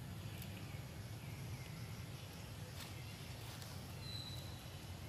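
Quiet outdoor ambience: a steady low rumble with a few faint clicks, and one short high chirp about four seconds in.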